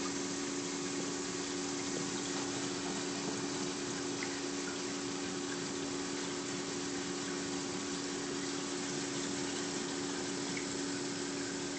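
Steady rush of moving water with a constant low electric hum from a saltwater aquarium's pump and filtration.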